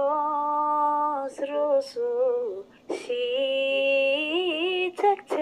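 A solo voice singing an unaccompanied song in long held notes with wavering ornaments, broken by short pauses between phrases.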